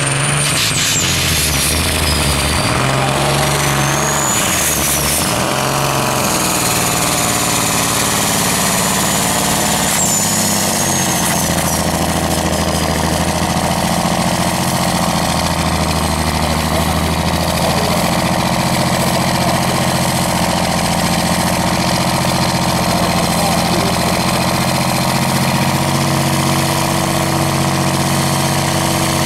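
Large diesel engine of a vintage pulling truck running loudly, its revs shifting up and down during the first ten seconds and then held steady. A high whine rises and falls over those first ten seconds.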